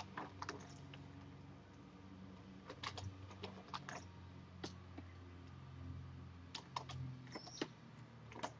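Computer keyboard keys and mouse buttons being pressed in a few short clusters of taps, faint, over a low steady hum.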